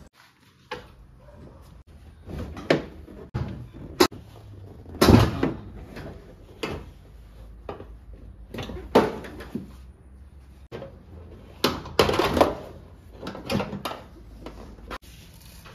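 Irregular knocks, thumps and short scraping rustles of a car's rear seat backrest being worked loose and pulled out of the body shell. The loudest come about five seconds in and around twelve seconds.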